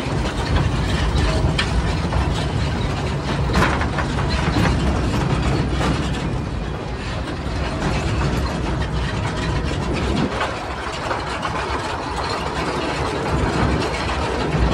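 Narrow-gauge Hokuriku Juki Kogyo diesel locomotive running under way with a train of empty cane wagons: a steady low engine drone under a constant rattle and clank of wheels and couplings on the light track.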